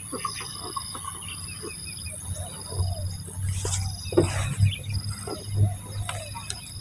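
Insects chirring: a steady high whine with a pulsing, on-and-off trill over it, and a few soft bird calls. Under them is a low, uneven rumble, loudest in the middle.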